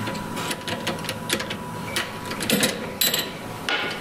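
Irregular light clicks and clacks of hand tools and small parts being handled in a workshop.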